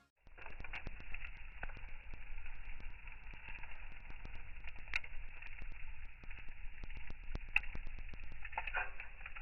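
Wood campfire crackling: a steady stream of small pops, with a couple of sharper snaps about halfway through and again a couple of seconds later.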